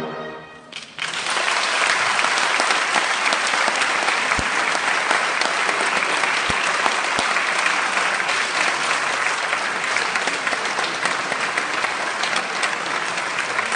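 Audience applause breaks out about a second in, as the ring of the wind band's final chord fades, and keeps up as a steady, dense clapping.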